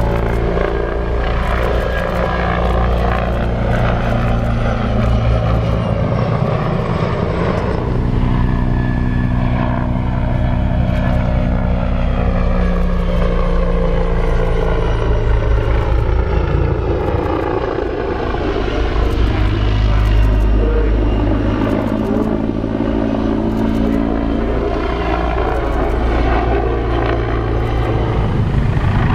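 Attack helicopter flying a display, its rotors and turbine engines running loudly and steadily. Through the middle a tone falls in pitch and then rises again as it passes.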